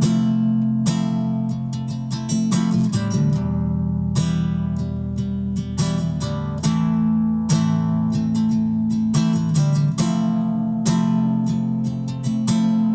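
Nylon-string acoustic guitar being strummed and picked, chords ringing over held low bass notes.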